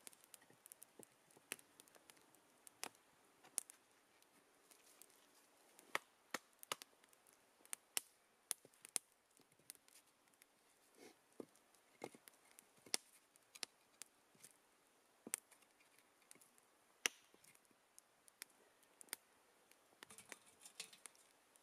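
Faint wood campfire crackling, with irregular sharp snaps and pops, and the odd knock of firewood logs being laid across it.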